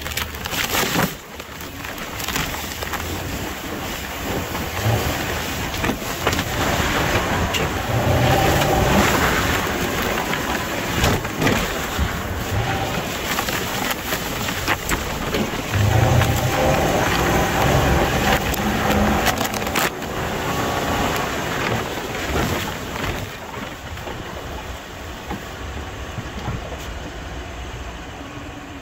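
A 2003 Toyota 4Runner's V8 engine driving through a tall-grass field, with a dense rushing and crackling of weeds flattened against the truck and tyres. The engine pulls harder twice, about a third of the way in and again a little past halfway, and everything settles lower near the end.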